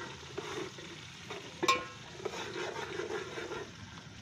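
Metal ladle stirring and scraping in an aluminium cooking pot of onions frying in oil, with a sharp ringing clink of the ladle against the pot a little under two seconds in.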